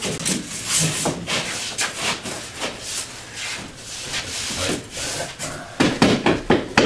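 Sheet of drywall scraping and rubbing against the wall panels and floor as it is tilted up and pressed into place, with several louder knocks near the end as it is bumped home.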